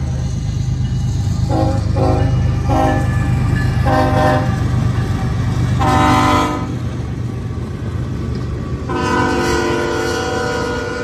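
Norfolk Southern diesel freight locomotive sounding its air horn. Four short blasts are followed by a longer fifth, then a long blast starts about nine seconds in and is held. Under it runs the steady low rumble of the locomotive and gondola cars passing.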